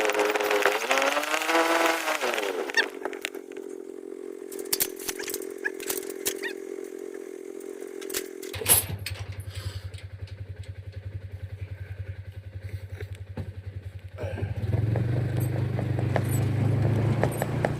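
An engine revving up and down, then running steadily, with scattered clicks and clatter; the sound changes abruptly about two and a half, eight and a half and fourteen seconds in, dropping to a steady low hum that grows louder near the end.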